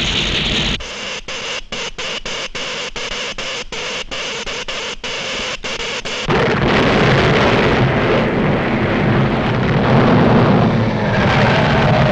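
Cartoon sound effects of an electric earthquake machine at work: a hiss that pulses about three times a second, then, about six seconds in, a louder, dense rumbling din as the quake strikes.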